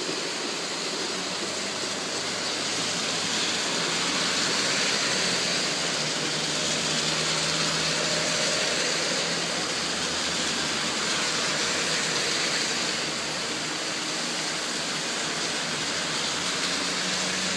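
Heavy rain pouring down in a steady, unbroken hiss that swells slightly in the middle.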